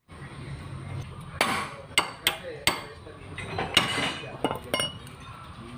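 Metal tools working on a car's underside: about seven sharp metallic knocks and clinks at irregular intervals, each with a short ring, as a socket wrench is worked on the steering and suspension joints.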